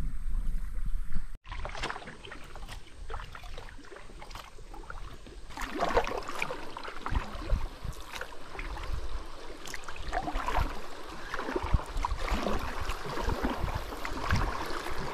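Kayak paddle strokes in river water: irregular small splashes and drips over a watery wash, busier from about halfway through. A low rumble of wind on the microphone in the first second or so.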